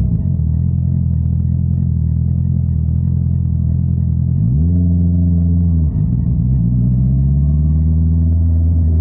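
Honda CBR650R inline-four engine running through an Akrapovič exhaust, with a steady note. About four and a half seconds in, the pitch rises sharply and holds, drops away just before six seconds, then climbs slowly again near the end.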